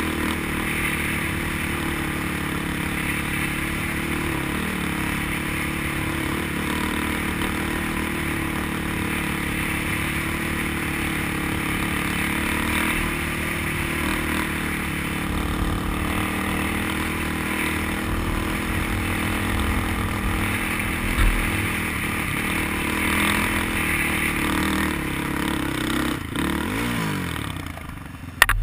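ATV engine running steadily under throttle while riding across sand. Near the end the revs fall away and it goes quieter, with one sharp knock just before the end.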